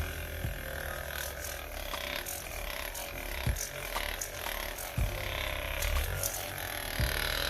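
A few sharp cracks and knocks during a chiropractic adjustment, spaced a second or more apart, over a steady low hum.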